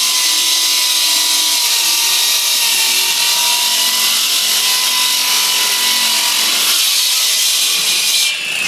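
Dr Bender electric handsaw on three-phase power cutting into reinforced concrete: a loud, steady grinding of the blade in the cut with a thin whine running through it. The sound dips briefly and changes near the end.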